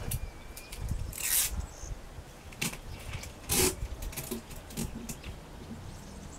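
Adhesive tape being pulled off the roll and torn while it is fixed onto newspaper: several short, noisy ripping sounds, the longest about a second in, among rustling handling noise.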